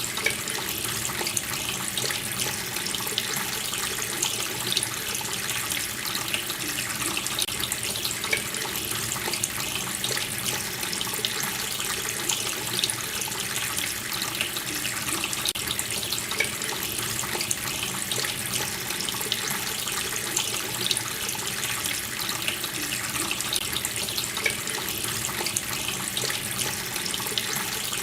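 Water running steadily from a tap, splashing with an even rushing sound and small irregular spatters.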